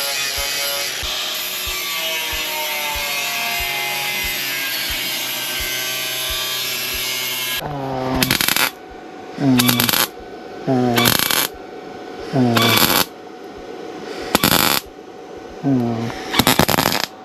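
Background music with a steady beat, then about eight seconds in a MIG welder stitch-welding repair panels in short bursts of under a second each, about seven bursts with brief pauses between them.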